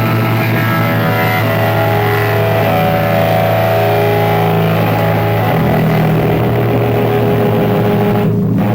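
Noise music: a loud, dense wall of droning, distorted sound with sustained low tones that shift pitch about halfway through.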